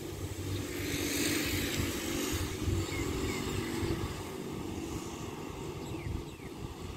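Diesel train running with a steady low engine rumble, with a rush of hiss that swells about a second in and fades by about two and a half seconds.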